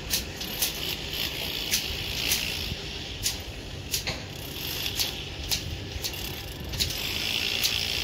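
Rebar mesh being tied by hand with wire and small hand tools: irregular sharp metallic clicks and snips, with short rasping bursts as wire is twisted, over a low steady rumble.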